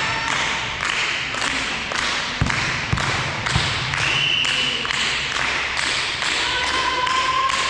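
Volleyball play on an indoor court: taps and thuds of the ball being struck and landing, with feet on the floor.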